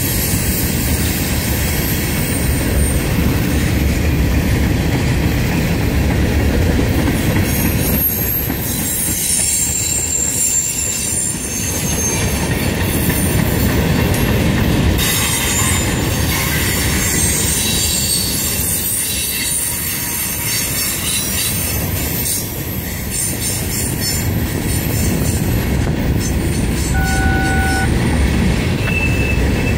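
CSX freight train rolling past, with a continuous heavy rumble of the cars on the rails and thin, high-pitched wheel squeal. Near the end the wheels click rhythmically over rail joints.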